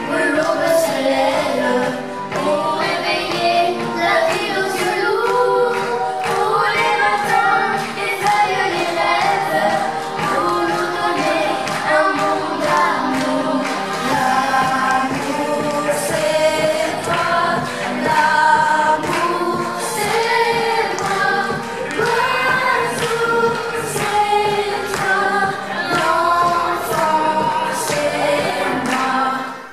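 A song sung by several voices together over instrumental backing with a steady beat; it fades out near the end.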